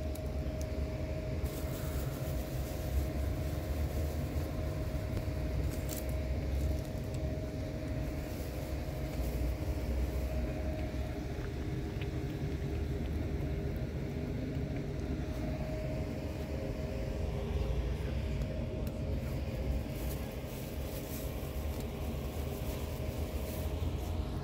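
Steady low rumble of outdoor urban background, like road traffic, with a faint steady hum and a few light ticks.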